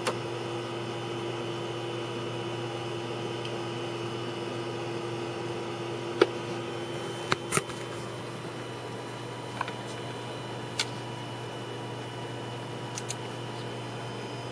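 Steady low hum with faint steady tones over it, broken by a few scattered sharp clicks.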